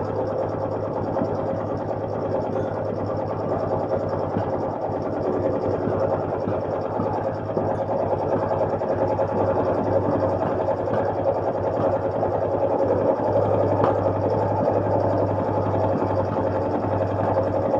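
1971 Honda SL350's parallel-twin engine idling steadily, running without its air filters.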